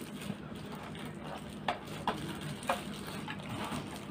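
Faint clicks and taps of a plastic lightstick and its packaging being handled, three slightly louder ones around the middle, over a low steady hum.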